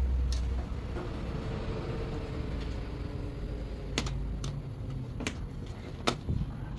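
Handling noise: a few sharp clicks and knocks over a low rumble, with clicks about four, five and six seconds in.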